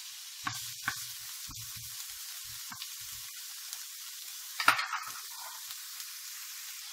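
Diced onion sizzling in hot olive oil in a frying pan, with a steady hiss, while a wooden spoon stirs and spreads it with small clicks and scrapes. One sharp knock about two-thirds of the way through.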